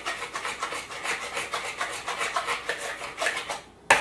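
Tempura batter being beaten by hand in a plastic bowl: quick, rhythmic mixing strokes, about six a second, that stop shortly before a single sharp knock near the end.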